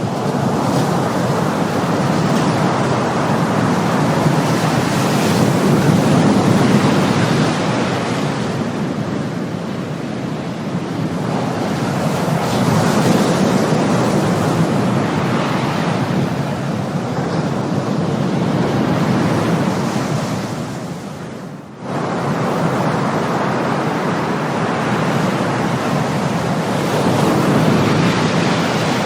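Ocean surf: waves breaking and washing in, the rush of water swelling and ebbing every six to seven seconds. A little past two-thirds of the way through, the sound drops away briefly and then comes back abruptly.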